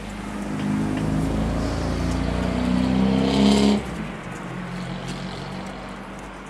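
A motor vehicle engine revving, rising in pitch for a few seconds and then dropping off sharply a little before the middle, leaving a lower steady engine hum.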